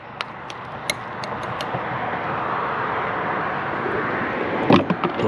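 Rushing noise of an approaching vehicle, growing steadily louder, with a few sharp clicks near the end.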